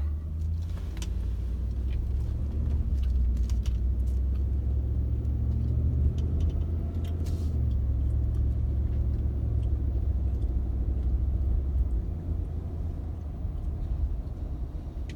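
Pickup truck driving, heard from inside the cab: a steady low engine and road rumble that eases off after about twelve seconds.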